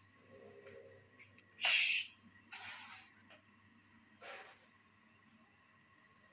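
Domestic cat hissing three times in short bursts during a standoff with another cat, the first hiss the loudest, after a faint low growl about half a second in.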